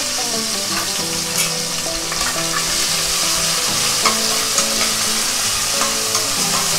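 Onion paste sizzling as it fries in hot oil in a pressure pan, with a steel ladle stirring it and scraping the pan now and then.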